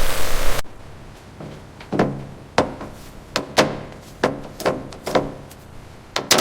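A steady hiss of noise cuts off abruptly under a second in, followed by about ten sharp knocks and thunks at irregular intervals.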